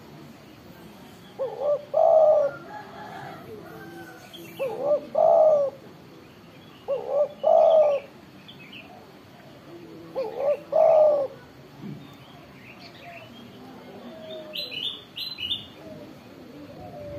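Spotted dove cooing: four loud phrases a few seconds apart, each a couple of short notes running into a longer one. A few short high chirps come near the end.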